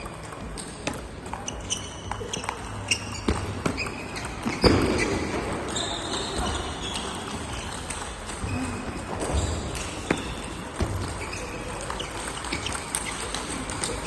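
Table tennis balls clicking off bats and tables, with several tables in play in a large hall, over background chatter. A louder thump comes about four and a half seconds in.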